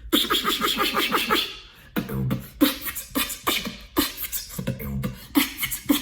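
A beatboxer demonstrating his loudest mouth sound. A fast run of sharp clicks over a voiced hum lasts nearly two seconds, then comes a string of shorter loud bursts and clicks.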